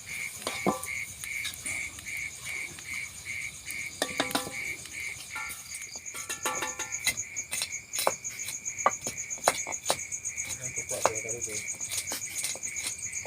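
Insects chirping: a steady pulsing call repeating about three times a second, joined about six seconds in by a higher, faster trill. Scattered sharp clicks and knocks sound throughout.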